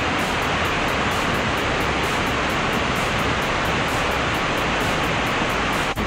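Steady rushing roar of Shizuku Falls, a two-tier waterfall running with a heavy flow of water.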